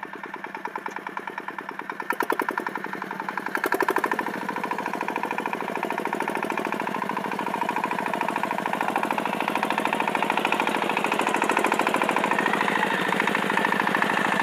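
Engine of a small crawler rotary cultivator running under load as it drives and tills through tall grass: a rapid, even chugging that surges louder twice, about 2 and 4 seconds in, and grows gradually louder.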